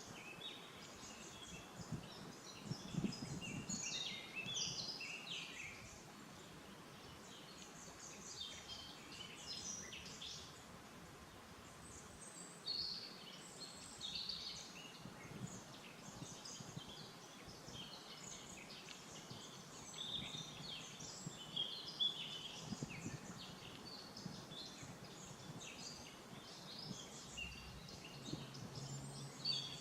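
Several small birds chirping and singing in quick, overlapping short calls, over a low, steady outdoor hiss.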